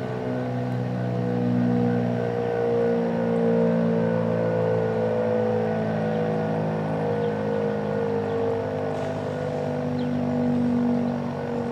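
American Signal RM-127 outdoor warning siren sounding its Alert signal, a steady held tone made of several pitches at once, its loudness swelling and easing slowly.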